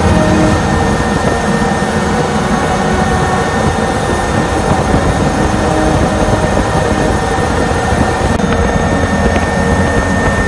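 Loud, steady cabin noise of a Super Puma helicopter in flight with its side door open: the drone of the rotor and twin turboshaft engines with a thin high whine over it.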